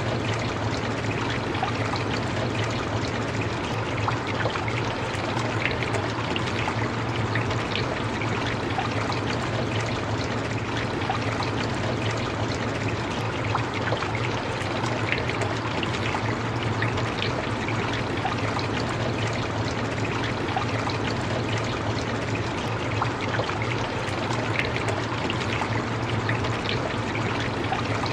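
Steady heavy rain: a dense even patter of drops with water running, and a low steady rumble underneath.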